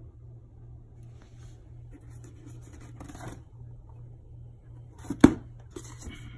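A cardboard shipping box being handled on a tiled floor: light rustling, then a single sharp knock about five seconds in, followed by a few small taps. A steady low hum sits underneath.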